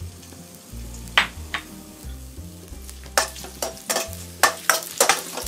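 A metal ladle stirs and scrapes in a wok as sliced ginger and scallion fry gently in oil over low heat, with a soft sizzle. Two knocks come about a second in, and the ladle's clicks and scrapes come thick and fast from about three seconds in.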